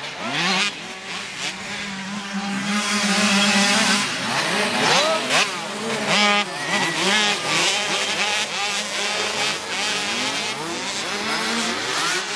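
A pack of small children's motocross bikes racing, their engines revving up and down as they pass, with many overlapping rising and falling whines over a steady drone.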